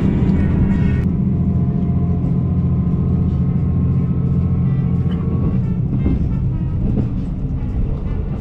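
KiHa 185 series diesel railcar heard from inside the cabin while running: a steady low engine drone with the rumble of the wheels on the track. Several sharp knocks come over the last few seconds.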